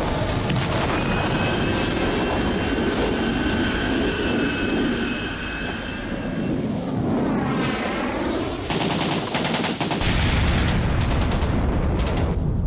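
Military aircraft flying over with a steady engine whine that sweeps past around seven seconds in, then rapid bursts of automatic gunfire from about nine seconds in over a low rumble.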